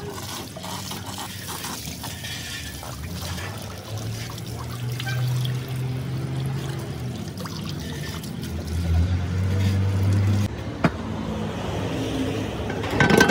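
Water running from a hose and splashing into a cast-iron truck differential carrier housing as its inside is scrubbed with a rag, with a low steady hum underneath. A sharp knock sounds near the end.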